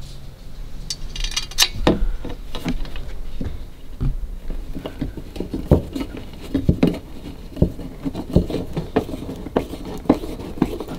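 A small screw being driven by hand with a screwdriver through a curtain rail into a single skin of van body metal: a run of irregular small metallic clicks and scrapes, with a brighter clink about a second and a half in.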